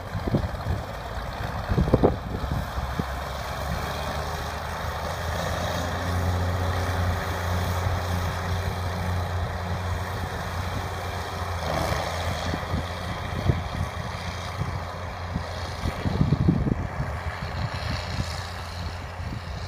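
Tractor engine running steadily with a low hum while pulling a New Holland 209 Hayliner square baler, with a few scattered knocks from the machinery.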